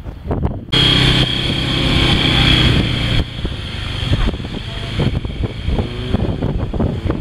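A motor vehicle's engine running steadily, mixed with wind and road noise. It comes in abruptly about a second in, and its sound changes about three seconds in.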